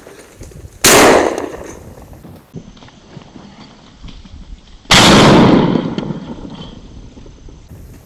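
Two shotgun shots about four seconds apart, each a sharp blast that echoes away over about a second.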